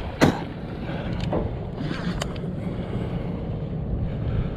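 Steady low rumble of a boat at sea with wind on the microphone. A sharp knock comes about a quarter second in, followed by a few fainter clicks from handling the rod and reel.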